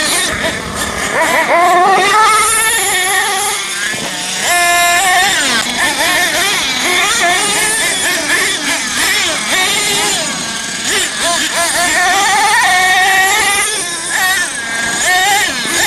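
Small nitro engines of radio-controlled monster trucks revving up and down as the trucks are driven, more than one at a time, their high whine rising and falling constantly with a briefly held steady pitch about four and a half seconds in.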